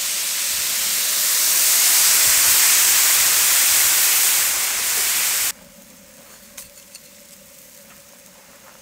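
Food sizzling and steaming hard in a hot pan, a loud steady hiss that cuts off abruptly about five and a half seconds in. After that only a faint steady hum with a few light clicks.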